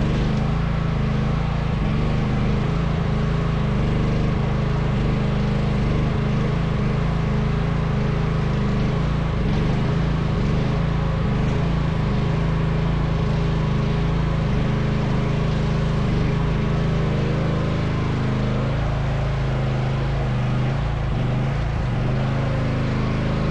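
Mini excavator's engine running steadily under work, its note shifting somewhat about two-thirds of the way through.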